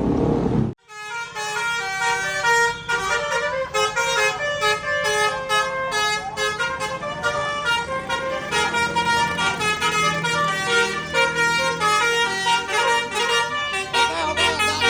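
Indonesian bus telolet horn, a multi-tone musical horn driven by a 'Takur' module, playing a fast melody of short stepped notes. It starts about a second in after a brief gap and runs on as a quick succession of changing pitches over a faint low engine rumble.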